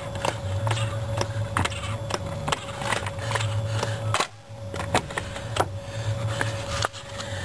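Irregular metallic clicks and knocks from a hydraulic floor jack being worked as its saddle is raised against the car's crossmember, over a low steady hum.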